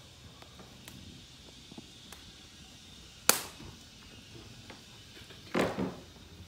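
A single sharp knock about halfway through, then a short rough scrape in two quick pulses near the end.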